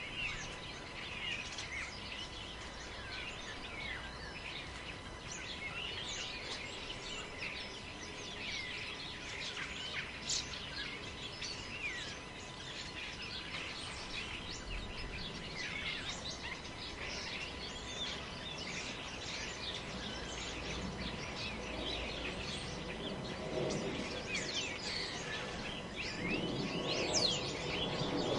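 Many small birds chirping in quick, short calls over a steady hiss of wind in the forest; the background noise swells louder over the last few seconds.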